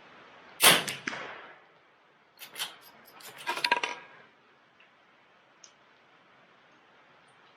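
A single shot from a CZ 457 MTR .22LR bolt-action rifle, a sharp crack that fades quickly. About two seconds later the bolt is worked by hand: a couple of clicks, then a quick run of metallic clicks and rattles as the action is cycled.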